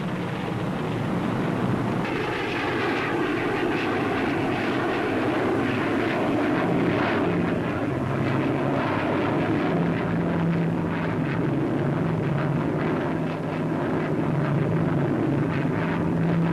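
Jet engine noise of a twin-engined Gloster Javelin delta-wing fighter in flight, a steady rushing roar on an old newsreel soundtrack. A low droning tone joins it about seven seconds in.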